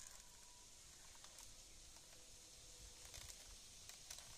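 Near silence: faint outdoor hiss with a few faint ticks.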